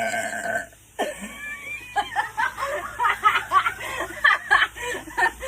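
A woman's long, loud belch, held on one wavering pitch, breaks off under a second in. After a brief pause comes a run of quick, choppy laughter.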